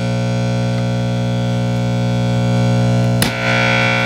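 Electric guitar played through a vintage DeArmond 1802 Weeper wah pedal and amp, a note held at a steady level. About three seconds in there is a click, and the tone turns brighter as the pedal's rocker moves the wah's sweep.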